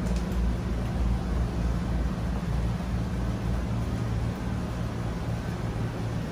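Wind buffeting the microphone, making a steady but uneven low rumble with a faint hiss above it.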